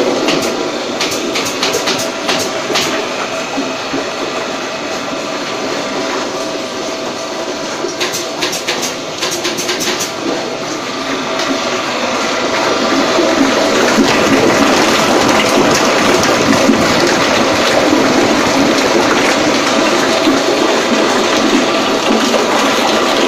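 Electric flour mixer running: the geared motor driving the agitator in a stainless-steel tank, a steady mechanical din with scattered rattling clicks, growing louder about halfway through.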